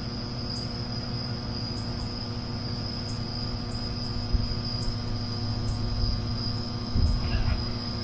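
Microwave oven running: a steady electrical hum with a thin high whine over it. A faint click comes about four seconds in and a short louder noise about seven seconds in.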